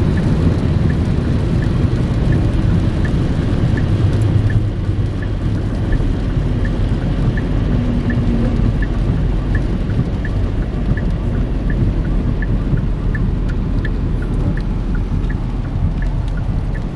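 Steady rumble of road and rain noise inside a moving vehicle, with a faint regular ticking about twice a second.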